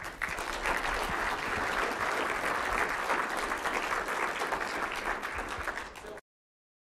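Audience applauding steadily, cut off suddenly near the end.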